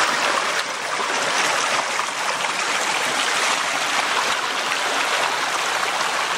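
Creek water running steadily over rocks, a constant rushing with no breaks.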